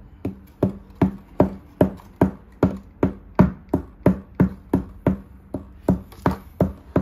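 Small plastic pickaxe from a fossil dig kit tapping again and again at a clay block, digging for the buried dinosaur fossil. The sharp knocks come in a steady rhythm of about two and a half a second.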